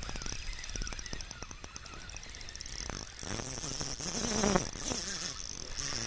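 Spinning fishing reel being cranked, a fast whirring tick that starts and stops sharply as line is retrieved. A louder, wavering lower sound joins in the middle.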